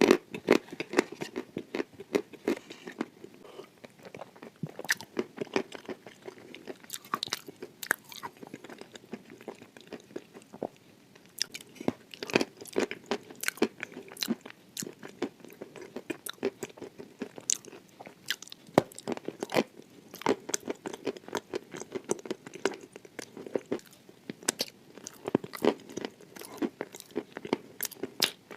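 Close-up crunching of dry chalk coated in clay paste being bitten and chewed: dense, irregular crackly crunches throughout, with frequent sharp bites.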